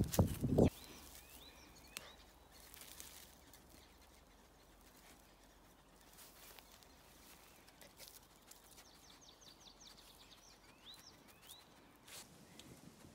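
Faint outdoor quiet with scattered small bird chirps and a short rapid trill from songbirds, after a brief loud low rustle at the very start that cuts off abruptly.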